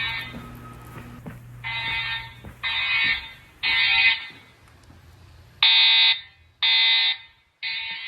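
EST Genesis speaker/strobes sounding the "masked integrity" alarm tone in a code-3 (temporal-3) pattern: three half-second bursts about a second apart, a pause, then three more.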